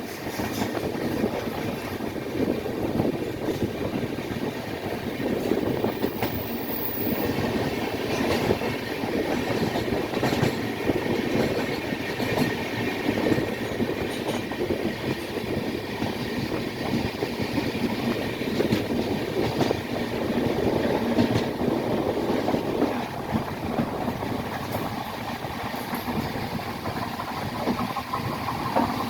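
A train running along the track, with a steady noise of wheels on rail that holds at an even level.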